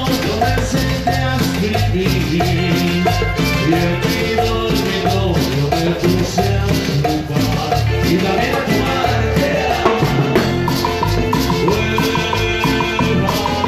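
Latin dance music in a salsa/cumbia style, loud and continuous, with a shaker rattling in a steady rhythm over drums and bass.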